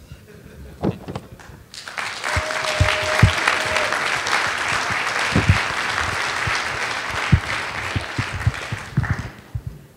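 Audience applauding, starting about two seconds in and dying away near the end.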